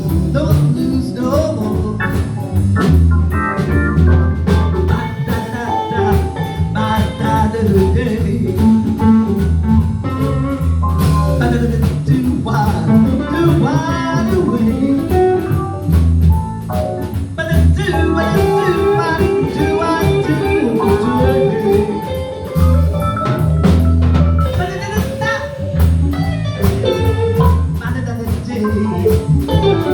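Live blues band playing between sung lines, with guitar and drum kit keeping a steady beat.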